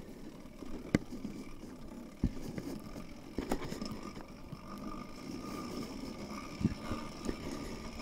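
Motorized bicycle rolling and being pedaled over grass and driveway, its two-stroke engine not yet running: a low rumble of tyres and drivetrain with a handful of sharp clunks and knocks from the frame and chain.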